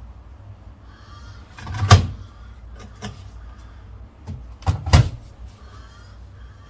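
LG washing machine being handled: two loud knocks about three seconds apart, with lighter clicks and faint rustling between them.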